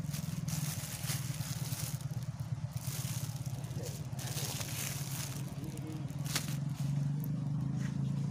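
A steady low engine hum with a fine regular pulse runs underneath. Over it come several short bursts of rustling and crinkling as plastic seasoning packets and a plastic bag are handled.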